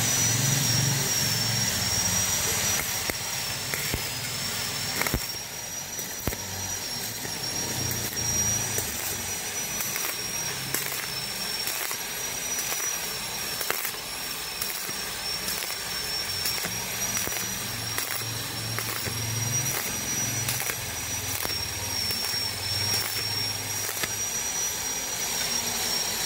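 Stick-welding arc on thin-walled (1.4 mm) galvanized steel square tube: a steady crackling hiss with frequent small pops as the electrode burns along the joint.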